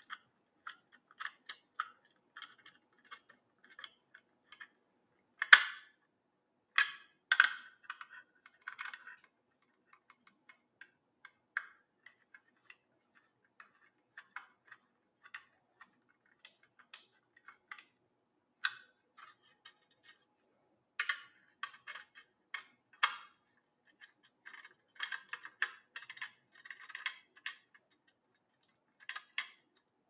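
Hand screwdriver tightening the small Phillips screws that hold a 2.5-inch SSD in its 3.5-inch adapter bracket: irregular small clicks and scrapes of the tip in the screw heads and of the bracket being handled, a few louder ones about five to eight seconds in.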